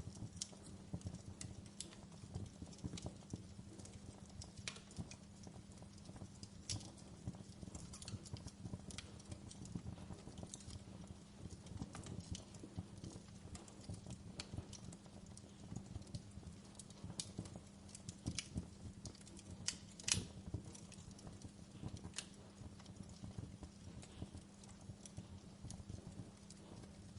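Wood fire crackling: irregular sharp pops and snaps over a low, steady rumble, with one louder pop about twenty seconds in.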